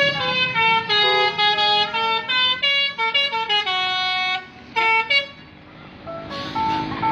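A bus's Basuri musical telolet horn plays a melody of stepped, held notes, stopping about four and a half seconds in. Two short notes follow about half a second later.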